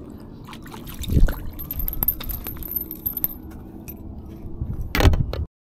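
Clinks, taps and rubbing as a small trout on a Rooster Tail spinner is swung out of the water and handled on the bank, with a heavy thump about a second in. A louder burst of handling noise comes near the end, then the sound cuts off abruptly.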